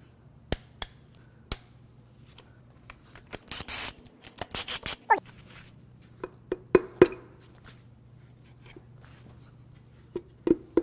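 Hand work on the connecting rods of a Jeep 4.0L inline-six: metal clinks of a wrench on the rod-cap nuts and a stretch of scraping, then sharp metal knocks as a brass drift is tapped against a rod bolt to drive a rod and piston out. The loudest knocks come about two-thirds of the way in, with two more near the end. The rod does not come out easily.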